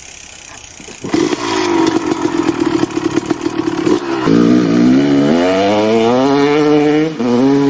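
Motorcycle engine running at a steady speed. About four seconds in it accelerates, its pitch rising, and it drops back at about seven seconds as it shifts up a gear before rising again.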